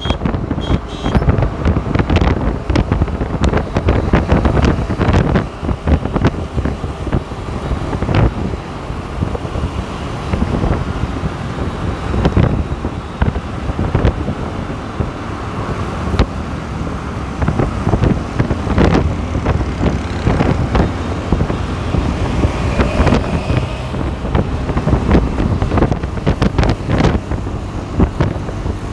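Wind buffeting the microphone while riding at speed along a busy highway, gusty with frequent thumps, over road noise from the ride and the cars in the next lanes.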